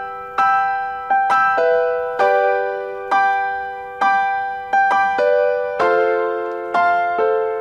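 Background piano music: slow chords of several notes struck about once a second, each left to ring and fade before the next.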